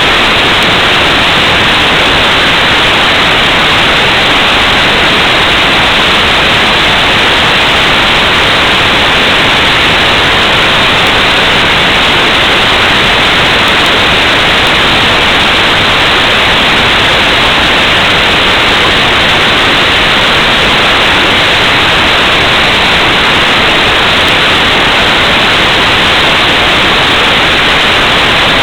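Loud, steady static hiss on the recording after the landing, with no change in level and no other sound in it.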